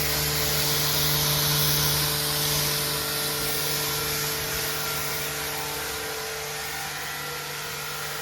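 Electric power tool running steadily: a constant motor hum with a strong hiss over it, easing off slightly in level as it goes.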